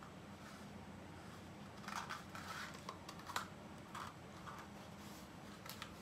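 Cardboard mouse glue trap and its packaging being handled and folded by hand: a scatter of short crinkles, taps and scrapes, the sharpest about three and a half seconds in.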